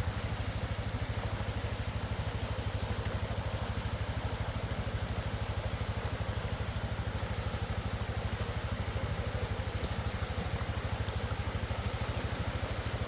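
Four-wheeler (ATV) engine idling steadily with an even low putter, over the steady rush of a rain-swollen creek.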